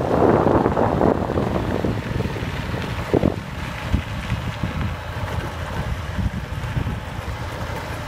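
Wind buffeting the microphone with a low rumble from riding along a dirt track. It is heaviest for the first couple of seconds, then eases to a steadier rumble.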